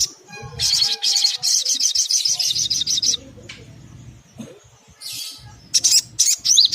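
Sunbird calling: a fast, high trill of repeated chirps lasting a couple of seconds, then after a pause a run of sharp, high, separate chirps near the end.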